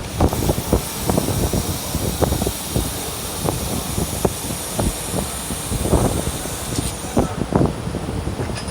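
Handheld laser welder in use: a steady hiss starts just after the beginning and cuts off about seven seconds in, over a continuous low, uneven rumble with scattered knocks.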